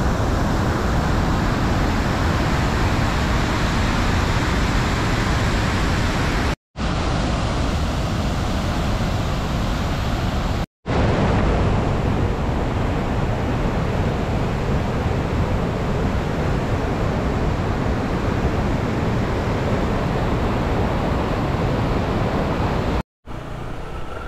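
Loud, steady roar of a waterfall and a flooded mountain river rushing over rocks. It breaks off into dead silence three times for a moment, and after the last break, near the end, the rush is quieter.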